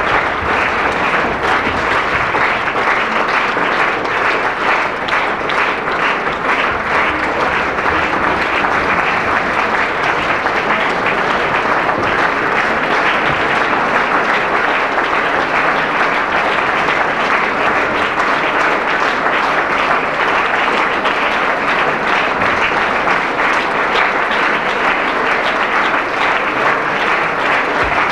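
Theatre audience applauding steadily during the curtain call.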